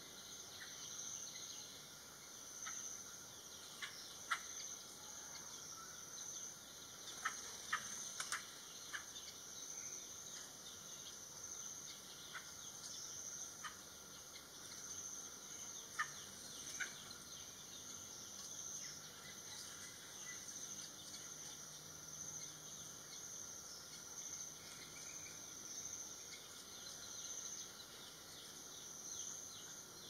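Insect chorus with a steady high-pitched pulsing drone. Over it come short sharp notes, a couple about four seconds in, a quick cluster from about seven to nine seconds in, and a few more around thirteen to seventeen seconds in.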